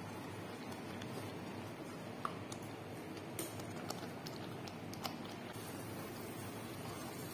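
Thick shrimp-paste sauce stirred in a pot with a wooden spatula: wet squishing over a steady hiss, with a few light clicks of the spatula against the pot near the middle.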